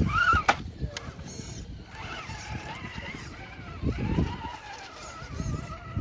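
Electric motor and gearbox of a scale RC rock crawler whining, the pitch wandering up and down with the throttle, over irregular knocks and scrapes of the truck working over the course.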